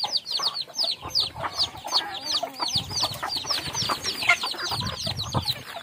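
A flock of native chickens: chicks peeping without pause in quick, high chirps that fall in pitch, several a second, over low clucking from the adult birds.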